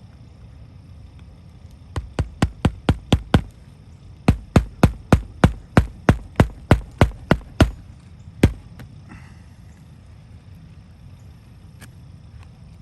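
Nails being driven into roof shingles: a run of about seven quick, sharp strikes at about four a second, a short pause, about fourteen more, then one last strike.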